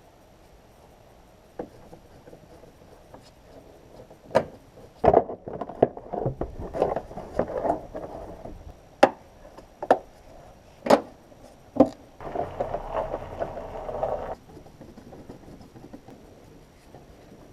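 A series of sharp knocks and clatter, like tools or metal parts being handled, followed by a steady rushing noise lasting about two seconds.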